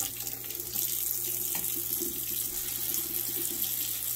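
Kitchen faucet running steadily into a stainless steel sink, the stream splashing as a knife and a plastic cutting board are rinsed under it.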